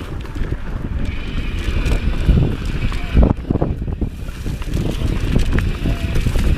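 Wind buffeting the microphone of a camera on a mountain bike at riding speed, over the rumble and rattle of the bike rolling down a bumpy dirt singletrack, with irregular knocks from the trail.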